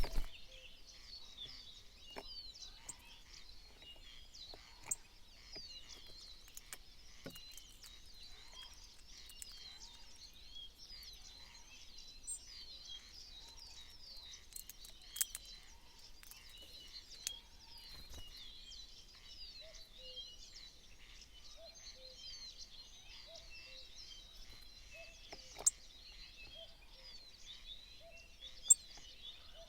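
Many small birds chirping and twittering together in a dense, continuous chorus of short high notes. A lower short note repeats from about two-thirds in. A few sharp clicks or taps stand out, the loudest near the end.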